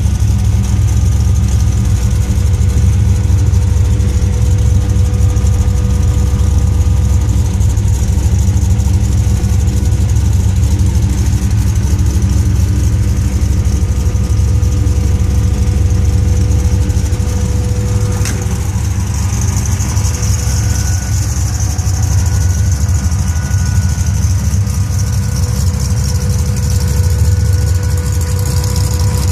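Supercharged 350 small-block V8 of a 1956 Chevy 210, fitted with an 8-71 blower, idling steadily. It is heard first from inside the car, then from behind it at the exhaust.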